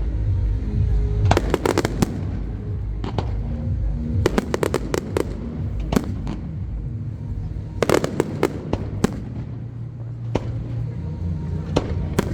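Fireworks display: sharp bangs and quick crackling volleys in clusters, over a steady low rumble, with music and crowd voices in the background.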